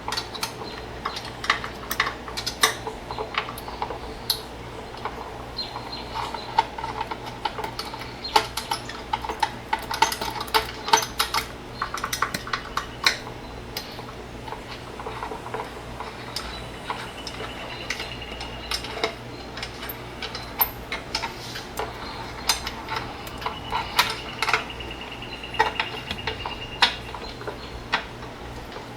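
Irregular small metallic clicks, taps and clinks of a screwdriver and tiny screws being worked out of the back of a car radio head unit, over a steady low hum.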